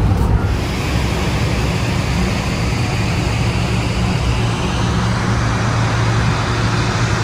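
Steady low drone of a car ferry's engines under an even rushing noise.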